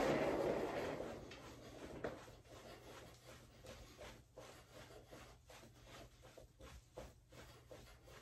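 Soft footfalls of a person jogging in place in socks on a wooden floor, a steady run of light thuds about two to three a second, with a louder rustling noise in the first second.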